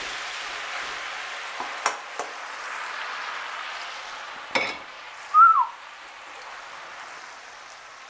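Spaghetti sizzling in a frying pan of hot rendered guanciale fat and olive oil as it is tossed with tongs and a wooden spoon, the hiss easing off gradually. There are a couple of light utensil clicks about two seconds in. Near the middle come a knock and a short rising-then-falling squeak, the loudest sounds.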